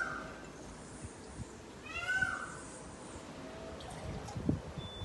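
Two short animal calls about two seconds apart, each rising and then falling in pitch.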